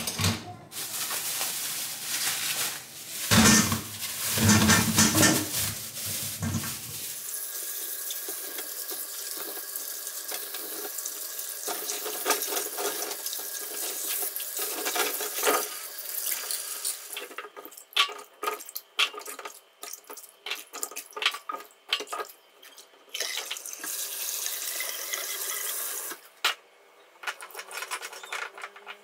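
Kitchen tap running into a sink, with heavier splashing for a few seconds early on and short knocks and splashes of things being handled under the water. The water stops a few seconds before the end.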